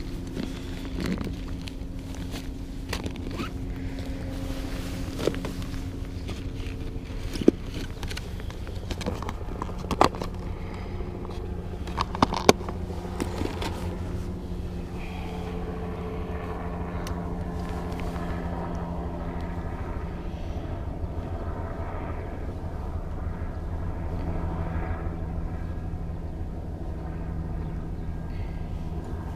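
Low wind rumble on the microphone under a steady motor hum, with scattered clicks and taps of fishing tackle being handled from a tackle bag. The sharpest clicks come in the first half.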